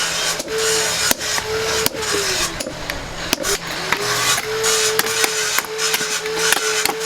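An electric power tool works metal: its motor hums steadily, sags in pitch under load about two seconds in, then picks back up, over a harsh rasping hiss with many sharp clicks and knocks.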